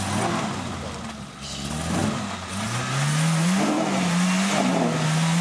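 Small off-road 4x4's engine revving under load as its wheels spin in loose sand on a steep mound: the revs sag about a second in, then climb again and are held high, wavering slightly.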